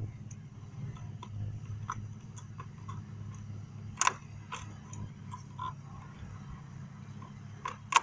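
Sharp clicks and taps of a metal wrench against hose fittings and engine parts, irregular, the loudest about four seconds in and another near the end, over a steady low hum.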